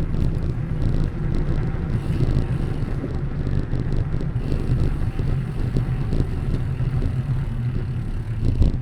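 Steady low wind rumble on the microphone while riding a bicycle along a path, with tyre noise and faint light rattles.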